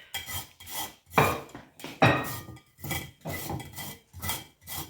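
Vegetables being worked back and forth on a hand grater or chopper, a run of rasping strokes about two a second.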